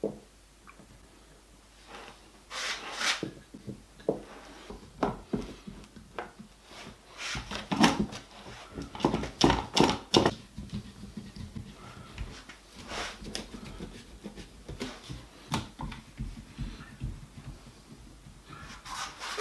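Pieces of timber handled on a workbench: irregular knocks and clatters of wood on wood, with a brief scrape about three seconds in and a busier run of louder knocks from about eight to ten seconds in.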